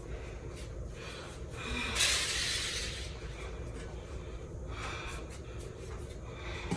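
A person breathing close to the microphone, with one loud hissing breath of about a second roughly two seconds in and a few softer breaths later, over a steady low hum.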